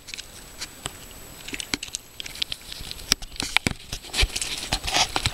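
Footsteps on river pebbles: irregular crunches and knocks, growing busier near the end.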